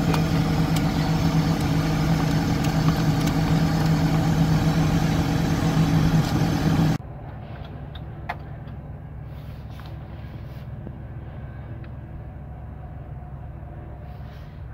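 Tracked excavator's diesel engine idling steadily close by. About seven seconds in, the sound cuts off abruptly to a much quieter low hum.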